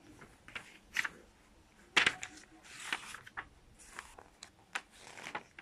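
Glossy magazine pages being turned and handled by hand: a series of soft, short paper rustles and slides.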